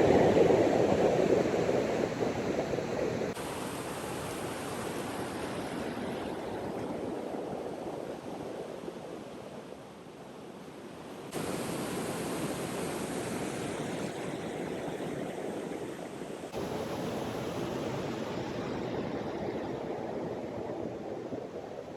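Steady rush of flowing river water, its level dropping and jumping abruptly a few times.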